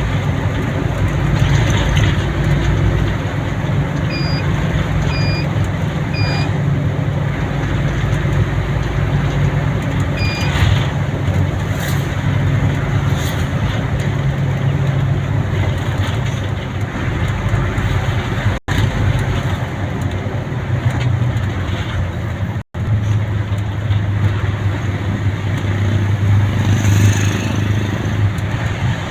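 Steady engine and road noise of a vehicle travelling along a road, with four short high beeps in the first ten seconds. The sound drops out for an instant twice in the second half.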